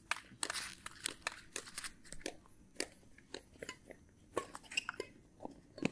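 Badminton doubles rally: a quick, irregular series of sharp racket-on-shuttlecock hits and clicks on court.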